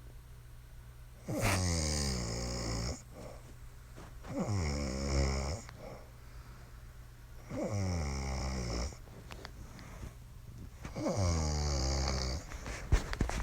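A woman snoring in her sleep: four long, rhythmic snores about three seconds apart, with a couple of sharp clicks near the end.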